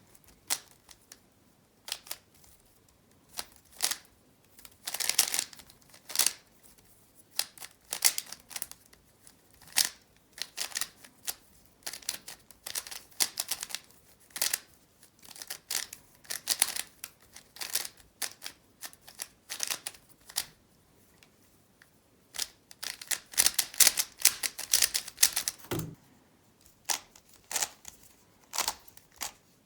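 Speed cube being turned by hand: fast runs of plastic clacks as the layers snap round, coming in bursts with short pauses between.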